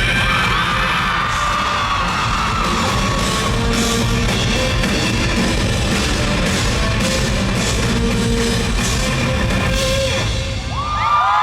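Rock band playing live at full volume, drums and distorted guitars, with high-pitched fan screams over it. About ten seconds in the band stops and the crowd screams and cheers.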